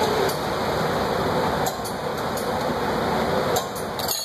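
Glassblowing lathe running with a steady whir, cutting off suddenly near the end, with a few light clinks.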